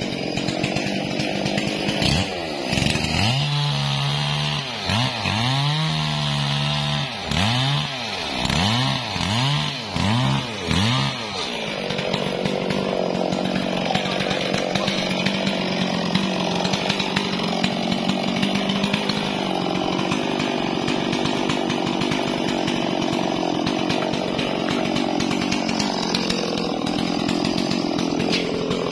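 Two-stroke chainsaw revved up and down repeatedly in quick blips, then held running at a steady speed for the second half.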